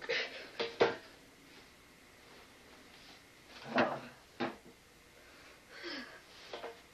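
Knocks and thumps of a person tumbling off a metal folding chair onto the floor. The sharpest knock comes just under a second in and a heavier one near the middle, with a few short grunts or vocal noises between.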